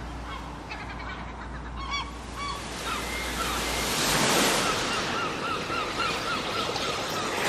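Birds calling over surf, with short calls scattered throughout and a quick run of repeated calls near the end. A wave washes in about four seconds in.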